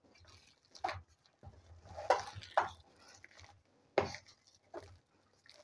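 A wooden spoon stirring thick mashed potatoes in an aluminium bowl, knocking and scraping against the bowl's side in a handful of separate strokes about a second apart.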